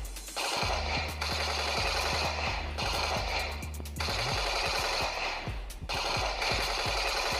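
Battery-powered toy gun playing its electronic machine-gun sound effect in repeated bursts of a second or two, with short breaks between them.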